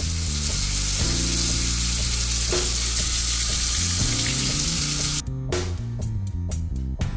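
Water pouring from a tub spout and splashing onto the RedGard-coated floor of an empty tub, a steady hiss that cuts off abruptly about five seconds in. Background music plays underneath.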